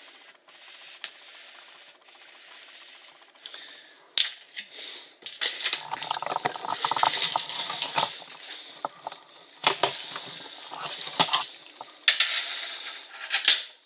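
Handling noise of a tape measure being stretched from a piece of wood to a marked line: scattered clicks and light rattles, with stretches of scraping and rustling.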